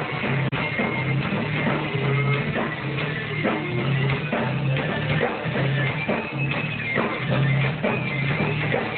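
Live rock band playing: electric guitar, bass guitar and drum kit, with the bass repeating a steady riff under the drums.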